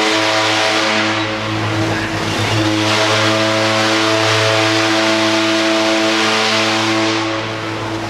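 Queen Mary 2's ship's whistle sounding a long, deep, steady blast, fading near the end.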